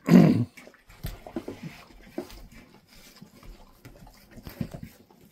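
Dogs licking dinner dishes and a bowl clean, with small wet lapping sounds and light irregular clicks of the dishes moving. A brief louder sound opens it.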